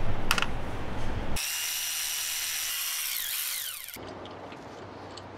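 A small metal bolt clinks once as it is set down on a metal parts tray. Then a power tool whirs with a steady high pitch for about two and a half seconds, its pitch falling away as it stops.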